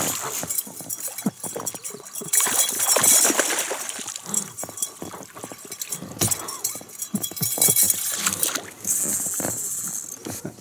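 A hooked splake thrashing at the water's surface beside the boat, splashing in uneven bursts, with the strongest about two and a half seconds in and again near the end.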